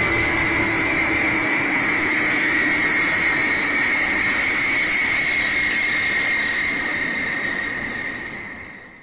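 Jet airliner engines running: a steady rushing noise with a high, even whine, fading out near the end.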